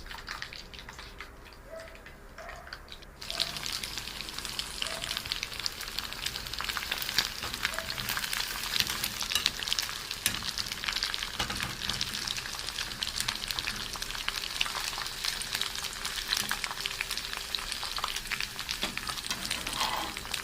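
Chicken pieces frying in hot oil: a dense crackling sizzle that starts suddenly about three seconds in and then carries on steadily.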